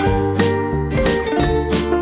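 Background music: a bright, upbeat tune with a bass line and a steady beat.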